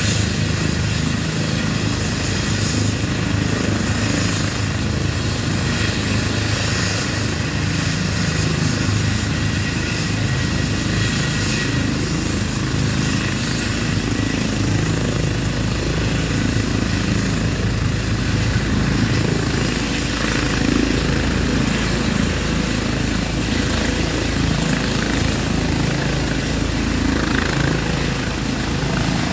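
Medical helicopter running on the ground with its rotors turning, a steady loud noise. A high turbine whine rises in pitch about twenty seconds in as power comes up, and the helicopter lifts off near the end.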